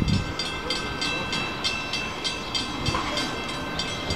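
Railroad grade-crossing warning bell dinging rapidly and steadily, about four to five strikes a second, each strike ringing at a steady pitch: the crossing gates are down for an approaching train.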